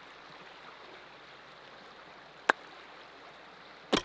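Steady, faint rushing of a small creek flowing. Two sharp clicks, one about halfway through and one near the end, stand out above it.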